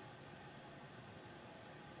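Near silence: steady faint background hiss.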